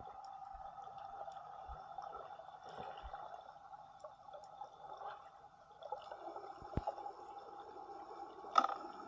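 Muffled underwater sound of a camera held below the surface: a steady watery hiss with faint scattered ticks, and a few sharp knocks, the loudest near the end.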